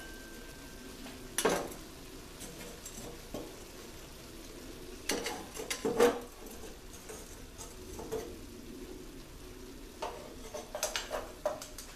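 Metal tongs clicking and knocking as lit charcoal briquettes are picked up and set down on a metal cooking table. The clicks come in scattered clusters over a steady low hiss.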